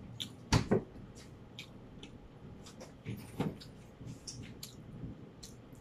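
Close-up eating and table noises: scattered sharp clicks and knocks. Two loud ones come close together about half a second in and two more about three seconds in, with softer clicks between.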